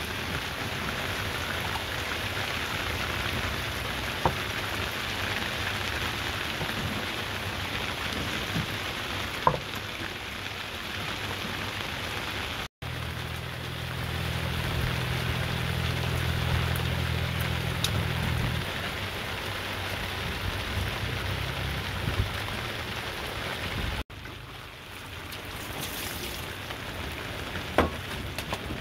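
Steady heavy rain, an even hiss, with a few sharp knocks. For about five seconds in the middle a low steady hum sounds beneath it.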